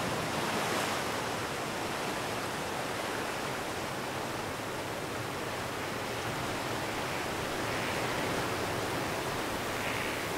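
Steady rushing noise, like distant surf, even and unbroken, with no distinct events.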